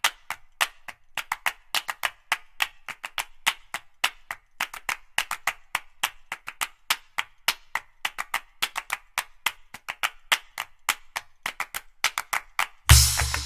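Oil crackling and popping on a hot tawa under a cooking rajgira (amaranth flour) paratha: irregular sharp pops, several a second. Music with percussion cuts in near the end.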